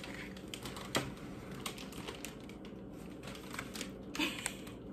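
Cellophane gift wrap, ribbon and a cardboard cookie box being handled and opened: a scatter of light crinkles, taps and clicks, one a little louder about a second in.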